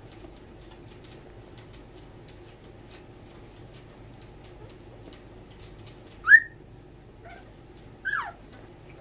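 Four-week-old miniature Bordoodle puppies yelping while they play-wrestle: a sharp, high squeal about six seconds in, then a second squeal that falls in pitch about two seconds later, over faint light ticking.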